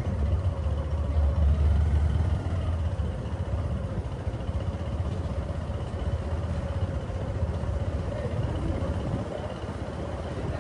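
Low, steady engine rumble of nearby street traffic, loudest about one to two seconds in, over general outdoor street ambience.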